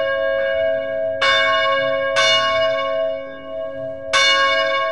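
A church tower bell struck again and again, about a second between strokes with a longer gap before the last one, each stroke leaving a long ringing hum that carries on under the next.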